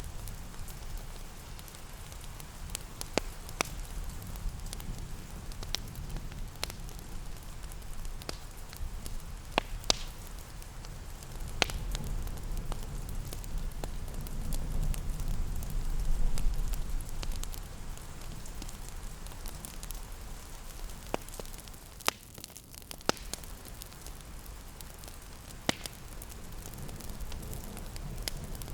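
Crackling fireplace with scattered sharp pops over a steady hiss of rain, and a low rumble that swells in the middle.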